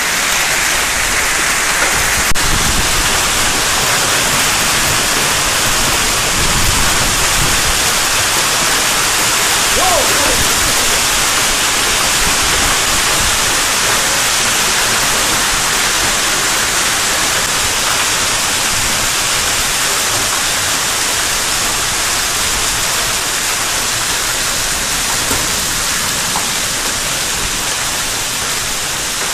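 Heavy hail falling with rain, hailstones pelting the street and pavement in a dense, steady noise that eases slightly near the end.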